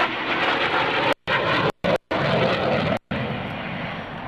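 Jet noise from an F-15C Eagle's twin Pratt & Whitney F100 afterburning turbofans as it flies past, a steady rushing sound that grows a little fainter near the end. It is broken by several brief dropouts where the recording cuts to silence.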